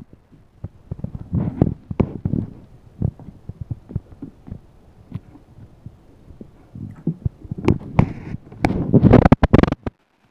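A monkey sucking and gnawing at the spout of a plastic sippy cup, with irregular soft thumps and clicks. Near the end comes a burst of louder knocking and rustling as the monkey moves off.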